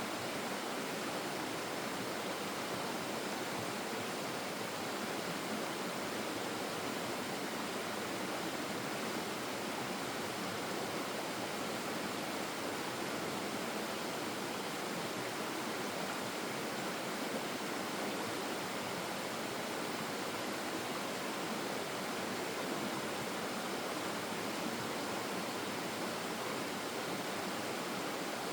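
Flowing stream water making a steady, even rush with no distinct splashes or other sounds standing out.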